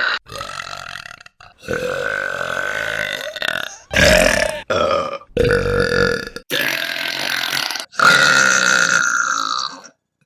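Women burping one after another, about seven belches in a row; several are long and drawn out, the longest lasting about two seconds.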